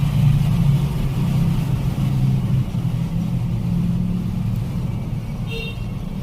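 Steady low rumble of a running motor, unchanging throughout.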